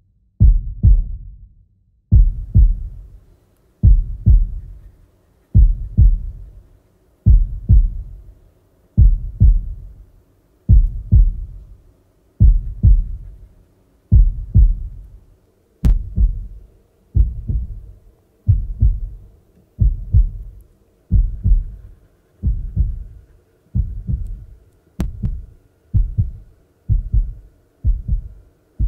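Heartbeat sound effect: a low double thump that repeats about every 1.7 seconds and speeds up to roughly once a second by the end. A faint sustained tone comes in under it about two-thirds of the way through.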